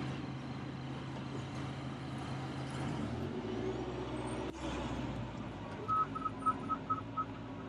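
Cat D6K2 LGP bulldozer's diesel engine running steadily, its note changing about three seconds in, with a single sharp click midway. Near the end comes a quick run of about seven high-pitched beeps.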